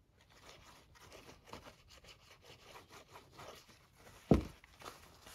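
Faint rustling and rubbing of handmade paper being glued and pressed onto a journal page, with one thump about four seconds in.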